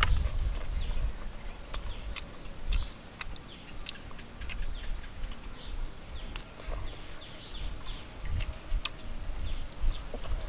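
Crisp fried fish being bitten and chewed close up, a run of sharp, irregular crunching clicks. Birds chirp in short strokes and a low rumble runs underneath.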